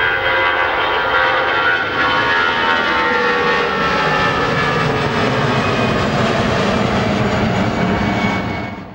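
Airbus A320-216 with CFM56-5B turbofan engines at takeoff thrust climbing out after liftoff: a steady loud jet rumble with whining engine tones that slowly fall in pitch as the plane moves away. The sound fades out quickly near the end.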